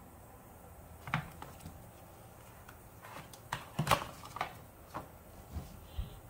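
Handling noise: a scatter of light clicks and taps as a hard plastic coin holder is slid and lifted out of its cardboard presentation box, the loudest a little under four seconds in.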